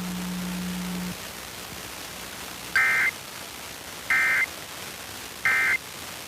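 Emergency Alert System end-of-message signal from an FM station's EAS encoder: three short bursts of two-tone digital data, evenly spaced about 1.3 s apart over a hiss, closing the required monthly test. A low hum cuts off about a second in.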